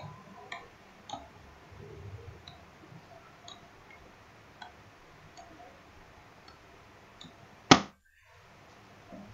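Faint computer mouse clicks at irregular intervals as curve control points are picked and dragged. About three-quarters of the way through comes one much louder sharp click, followed by a brief dropout to silence.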